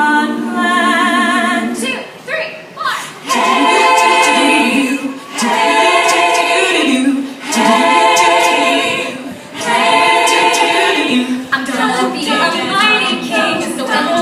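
All-female a cappella group singing in close harmony, with no instruments: held chords with vibrato in phrases of about two seconds, with short breaks between them.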